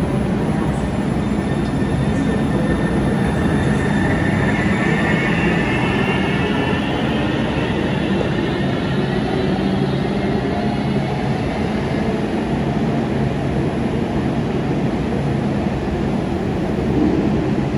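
Link light rail train pulling away from an underground station platform: a steady running hum, with the electric drive's whine rising in pitch as the train accelerates out.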